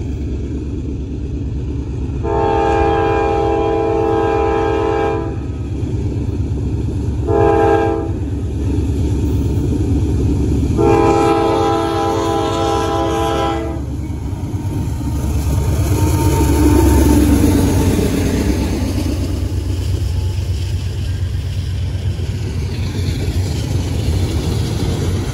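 A diesel freight locomotive's air horn sounds for a grade crossing in three blasts: long, short, long. Then the locomotive rumbles past at slow speed, followed by flatcars loaded with rail rolling by.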